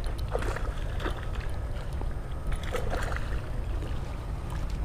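Steady low wind rumble on the microphone, with a few scattered light clicks and rustles.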